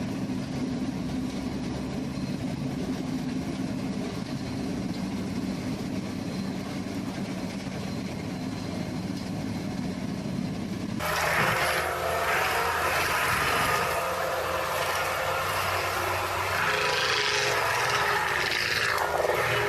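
Heavy equipment engine running steadily. About eleven seconds in, the sound cuts abruptly to a different, brighter recording with higher-pitched mechanical whines over a rough noise.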